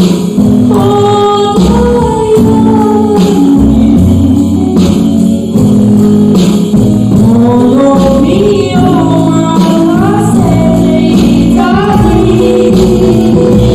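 Live performance of a slow Japanese enka ballad: a female voice sings a flowing, gliding melody over a small band of upright bass, drums and electric guitar.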